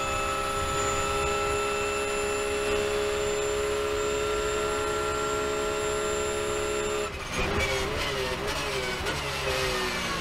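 Porsche 911 GT3 R race car's flat-six engine heard from the cockpit, held at high revs flat out in top gear. About seven seconds in the driver lifts off sharply, and the engine note falls in steps through a run of downshifts under heavy braking.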